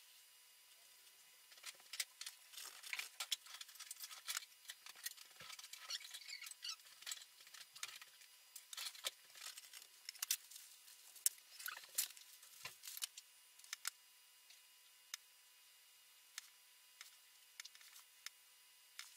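Thin paintbrush scraping and dabbing oil paint onto a stretched canvas: quick scratchy strokes, busy for most of the first thirteen seconds, then only a few scattered ticks.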